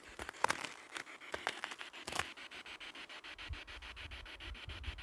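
Light irregular scratching and crunching of snow and phone handling, then a low rumble on the microphone from about three seconds in.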